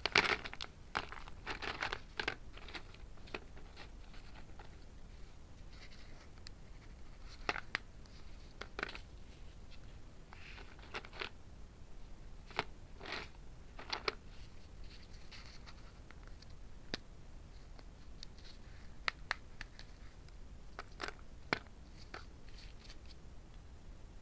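Roasted multani mitti (Fuller's earth clay) crunching as it is bitten and chewed: a quick run of crunches in the first few seconds, then single sharp crunches every second or two.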